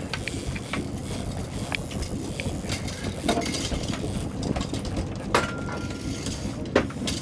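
Fishing boat's engine running steadily, with scattered sharp clinks and knocks on board.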